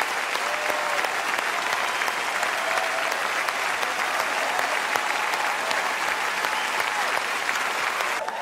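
A large theatre audience giving a standing ovation: steady, sustained applause, broken off abruptly by an edit just before the end.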